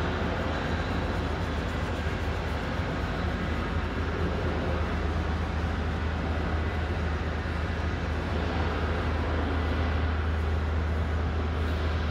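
A long-handled brush scrubbing a soaked, soapy silk carpet, with water and foam sloshing and rubber boots stepping on the wet surface, over a steady low machine hum.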